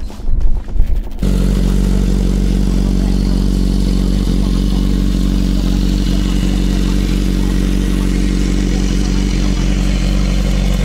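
BMW S1000RR's inline-four engine idling steadily, starting about a second in.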